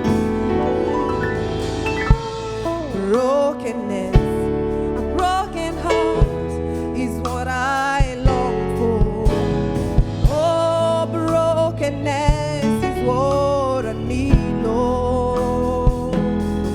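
Live gospel worship music: a band with keyboard, guitar and drums playing a slow song, with sung melody lines held and ornamented with vibrato.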